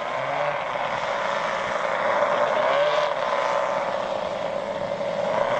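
The four engines of a giant radio-controlled B-29 model bomber droning steadily in flight, with a slight wavering in pitch.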